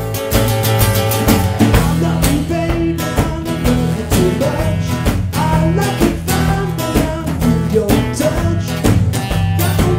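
Rock-blues band music: guitar over a drum kit with a steady beat.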